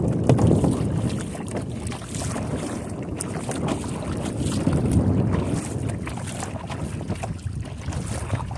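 Kayak paddling: a double-bladed paddle dipping and splashing on alternating sides, under a steady low rumble of wind on the microphone that swells and eases.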